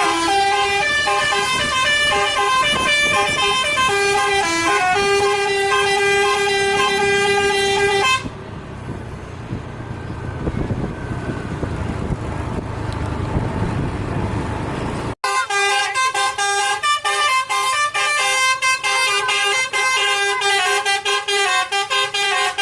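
Bus telolet horn, a set of multi-tone musical air horns, playing a stepped melody for about eight seconds. Then comes several seconds of engine and road rumble that grows louder. After a sudden cut, a telolet horn plays again in quick, choppy notes.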